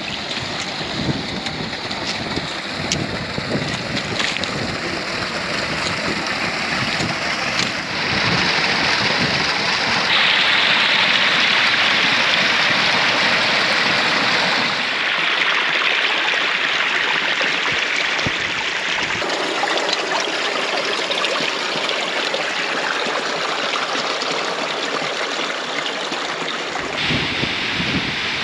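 Glacial meltwater stream running fast over stones and ice: a steady rush of water whose loudness shifts abruptly a few times, loudest in the middle.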